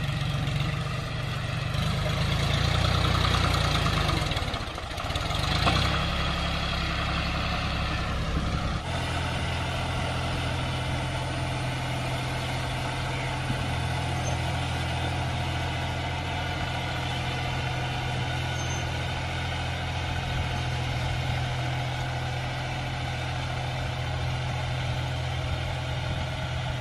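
John Deere 5039 tractor's diesel engine running steadily while driving a rotary tiller through grassy ground. It is louder for the first few seconds, dips briefly about five seconds in, changes abruptly about nine seconds in, then holds a steady drone.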